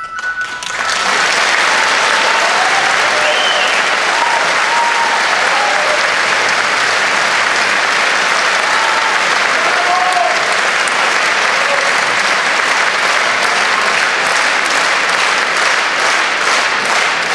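Large audience applauding after a song ends, rising to full strength about a second in and holding steady. Near the end the clapping thins out into separate claps.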